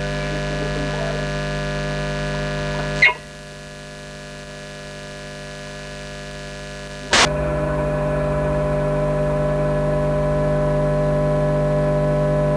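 Steady electrical buzzing hum made of many evenly spaced overtones. It drops sharply in level with a click about three seconds in, then jumps back up with another click about seven seconds in.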